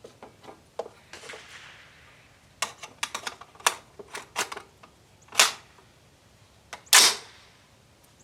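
A run of sharp mechanical clicks and clacks, bunched about two and a half to four and a half seconds in, then two louder knocks about five and a half and seven seconds in: handling of the rifle and its gear.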